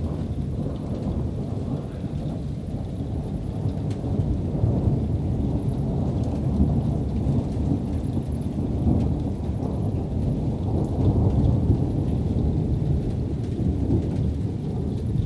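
Long, continuous rolling rumble of thunder from an approaching thunderstorm, slowly swelling in loudness.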